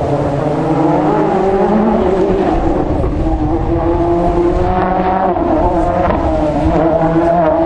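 Rally car's engine working hard on a stage, its note rising and falling several times as it accelerates and eases off.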